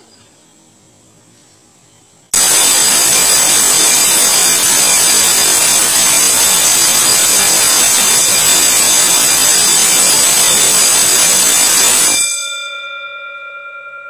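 Electric gong bell with a chrome dome, set off by a school bell scheduler for a continuous ring: it starts suddenly about two seconds in, its hammer clattering rapidly against the dome and very loud for about ten seconds. It then stops, and the dome rings on with a fading hum.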